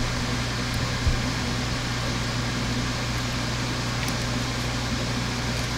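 Steady low machine hum over an even hiss, with a faint click about a second in.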